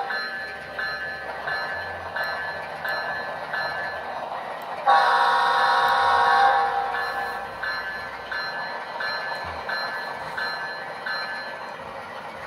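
HO scale model diesel locomotive's sound decoder playing through its onboard speaker: the locomotive bell rings steadily, about one stroke every 0.7 s, and a multi-note air horn sounds one blast about five seconds in, lasting about a second and a half.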